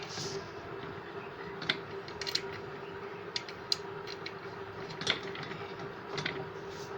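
Scattered metal clicks and taps from ceiling fan body parts being handled and fitted, over a steady hum.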